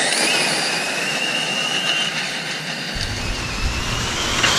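Two Team Associated DR10 RC drag cars with 7-turn modified electric motors at full speed: a high, steady motor whine that slowly fades as they race away. Near the end a louder rush of noise as a car passes close by.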